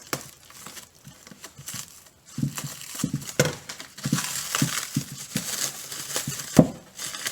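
Packing material crinkling and rustling as it is pulled and unwrapped by hand from a packed item, in irregular bursts that get busier about halfway through. There is a single sharper knock near the end.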